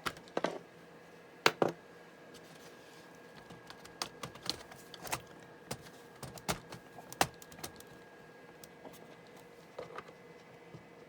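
Irregular sharp plastic clicks and taps as a laptop keyboard is handled and fitted back into the case of a Compaq Armada 7770DMT.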